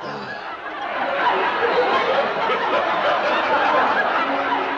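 Audience laughter from a sitcom laugh track, growing louder about a second in and holding.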